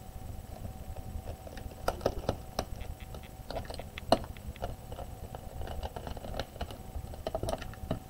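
Light, irregular clicks and taps of a Phillips screwdriver and fingers working the bottom screws of a Chromebook's plastic case.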